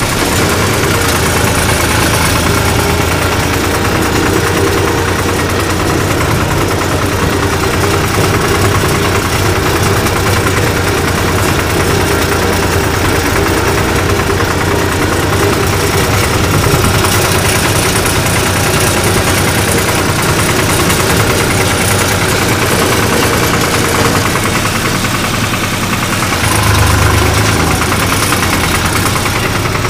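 1974 Long 350 diesel farm tractor engine running steadily, with a brief swell in its sound near the end.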